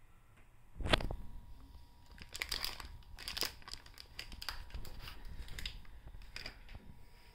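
Sealed plastic printhead pouches crinkling and rustling as they are handled, with a single thump about a second in that is the loudest sound, followed by quick crackly rustles.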